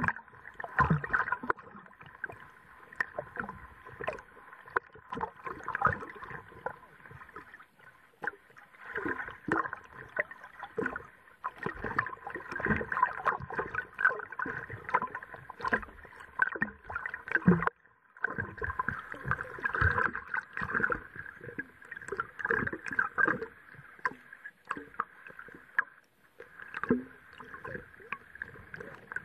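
Muffled underwater sound from a submerged action camera in a lake margin: water moving, with many irregular small clicks and knocks.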